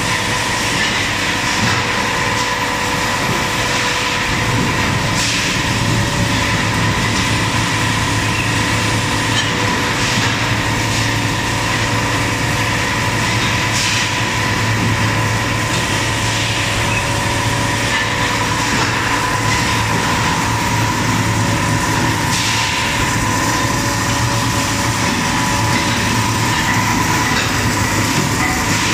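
Plastic food-container forming machine and its conveyor running: a steady mechanical hum with several fixed tones, and a short hiss every few seconds.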